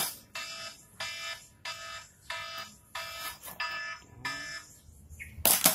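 An electronic alarm-like beep with a buzzy tone, pulsing about one and a half times a second, six times, then stopping about four seconds in. A sharp knock comes near the end.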